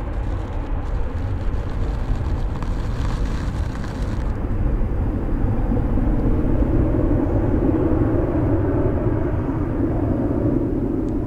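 A jet airliner's engines giving a steady rumble that grows louder past the middle and eases slightly near the end.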